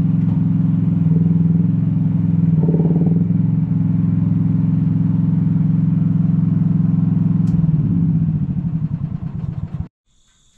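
Small engine of an AGT Industrial L12 micro excavator running steadily while its hydraulic arm works, the note shifting briefly under load a couple of times. The note changes about three-quarters of the way through, and the sound then cuts off abruptly just before the end, leaving crickets chirping.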